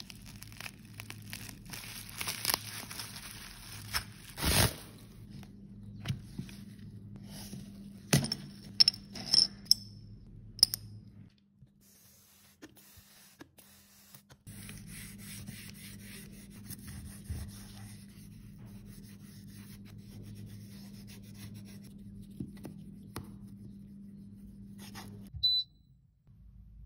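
Unpacking and handling sounds: a knife blade scraping and slicing packing tape on a foil-wrapped parcel, with wrapping crinkling and a quick run of sharp clicks and taps. Under it runs a low steady hum that drops out for a few seconds midway.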